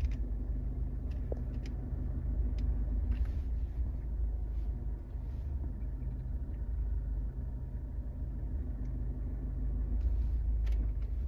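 A moving vehicle's engine and road noise: a steady low rumble with a few short knocks and rattles from the rough road.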